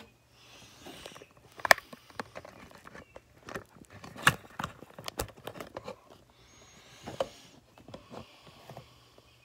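Handling noise from a phone camera being picked up and moved: fingers rubbing and brushing over it, with a string of sharp clicks and knocks, the loudest a little under 2 seconds in and at about the middle.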